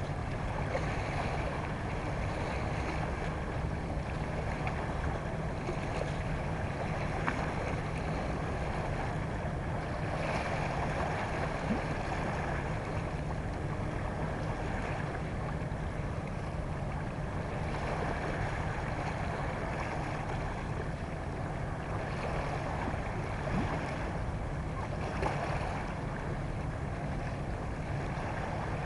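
Small waves washing over a rocky shoreline, the wash swelling every several seconds, over a steady low rumble.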